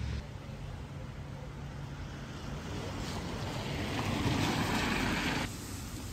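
Outdoor ambience: a steady rushing noise that swells for a couple of seconds in the middle and then drops off abruptly.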